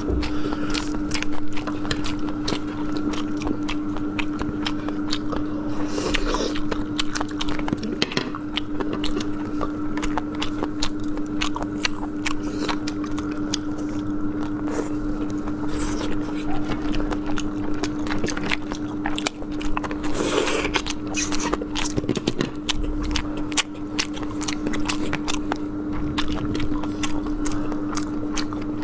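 Close-up eating sounds of raw oysters being slurped from the shell and sushi rolls being bitten and chewed, a steady stream of small wet clicks and smacks. A steady hum runs underneath.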